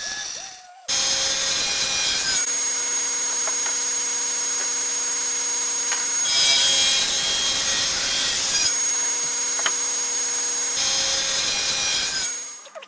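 Table saw blade cutting aluminium bar stock: a loud, steady high metallic whine over harsh cutting noise, changing tone abruptly several times. A band-saw cut fades out just before it starts.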